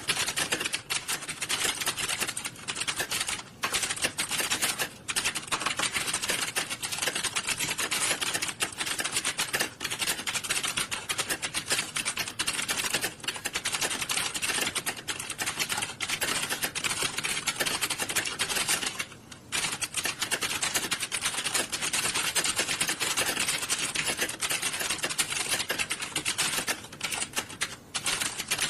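Dense, continuous clatter of many computer keyboards being typed on at once, the keystrokes running together into a steady rattle. There is a brief lull about 19 seconds in.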